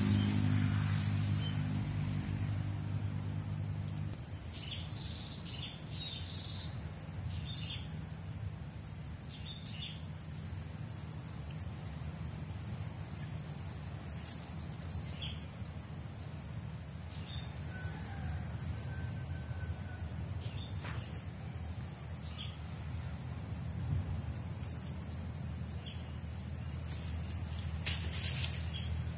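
Swamp ambience: a steady, high-pitched insect drone with short bird chirps scattered over it, most of them between about four and ten seconds in, above a low background rumble.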